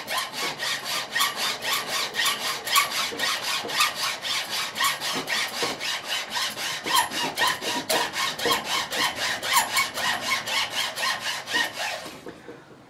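Hacksaw cutting through a block of walnut, in even back-and-forth strokes about three a second, stopping near the end.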